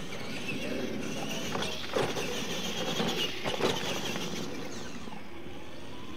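Radio-controlled monster trucks racing on a dirt track: their motors whine, rising and falling, over a steady rumble of tyres on dirt, with a few sharp knocks from the trucks landing and hitting ramps about two and three and a half seconds in. The whine fades near the end.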